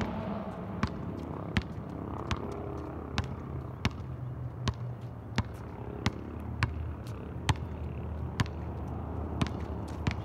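Basketball bouncing on an asphalt court: a run of sharp bounces, about one every three-quarters of a second, over a low steady hum.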